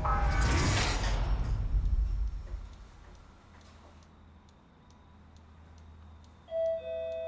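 A loud sound fades away over the first two seconds or so. A clock then ticks faintly and regularly, about three ticks a second, and about six and a half seconds in a held musical tone with an overtone comes in over it.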